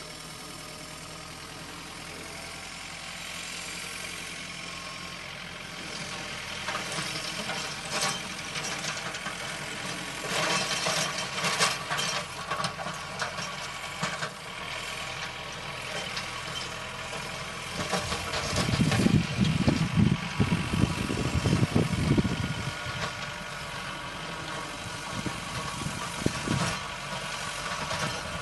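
A tractor engine running steadily, with scattered clatter and crackling. A louder, uneven low rumble comes about two-thirds of the way in.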